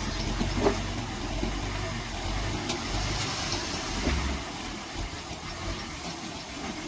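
A vehicle engine running at low speed, with a short knock less than a second in and another about four seconds in.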